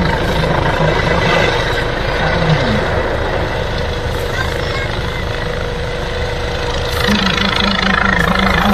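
Airbus EC135 helicopter flying overhead: steady rotor and turbine noise with a faint steady whine.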